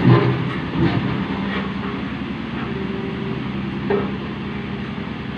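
Road roller engine running steadily, a constant low drone, with brief voices in the first second.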